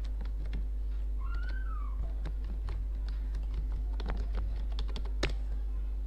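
Computer keyboard typing: scattered key clicks that bunch together about four to five seconds in, the sharpest click just after five seconds, over a steady low hum.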